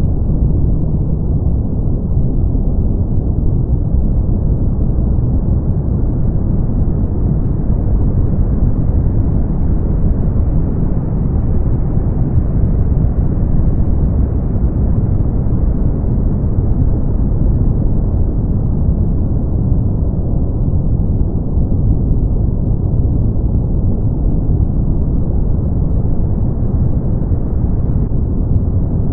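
Brown noise: a steady, deep rumbling hiss with most of its weight in the low end and little above the treble, its brightness swelling and easing slowly over several seconds.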